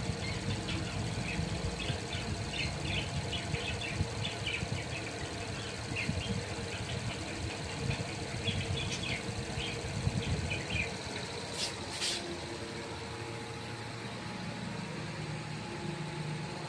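Budgerigars chirping in quick, short calls over a steady low rumble, with two brief hissing bursts about twelve seconds in; the chirping thins out after them.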